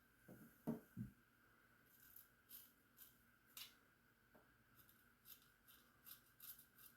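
Faint, short scrapes of a 1901 Gem Junior safety razor cutting lathered stubble, a handful of scattered strokes, with two soft knocks about a second in.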